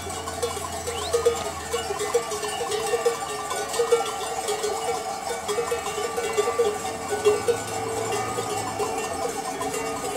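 Bells on a passing flock of sheep and goats, clanking irregularly and continuously as the animals walk.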